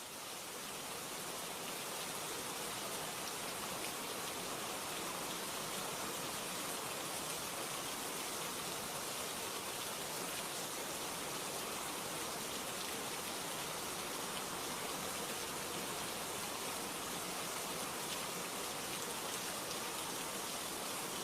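Steady rain falling: an even, continuous hiss with no distinct drops standing out. It swells slightly over the first second or two, then holds steady.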